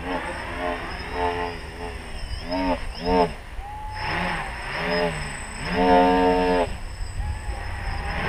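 A 3D-printed tricopter's motors and propellers in flight, their buzz surging and bending up and down in pitch as the throttle changes, over a thin steady high whine.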